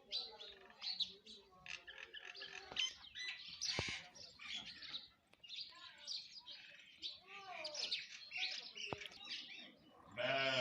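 A mixed chorus of common mynas and house sparrows: dense, overlapping chirps and varied calls, with a louder, harsher myna-like call near the end and a couple of sharp clicks among them.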